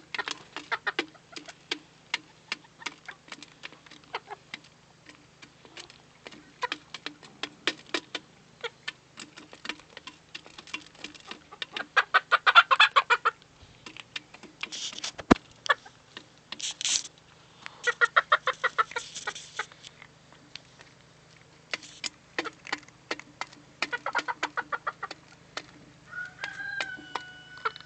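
Chickens clucking in short bursts over quick, repeated tapping as they peck at cat food.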